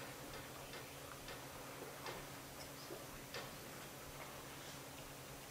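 Quiet room tone: a steady low electrical hum with faint, irregularly spaced clicks.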